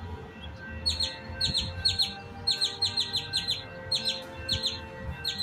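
A small songbird giving sharp, high, downslurred chirps in quick runs of two to four notes, repeated over and over: scolding calls, taken as the bird being unhappy at the watcher's presence.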